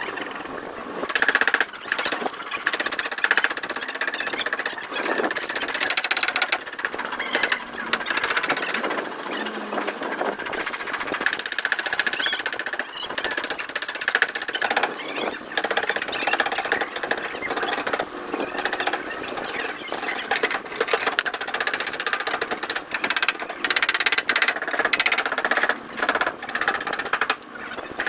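A power tool hammering rapidly on car body metal, running in long stretches with a few brief pauses.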